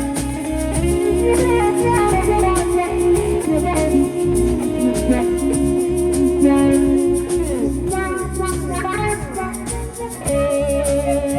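A live band plays an instrumental passage: guitar lines over a steady rhythm with a shaker, with no singing. A run of sliding notes comes a little past the middle.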